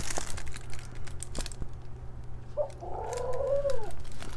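Plastic packaging of a diamond painting kit rustling and crinkling as it is handled. A short pitched sound, like a coo or a hum, rises over it about two and a half seconds in and lasts just over a second.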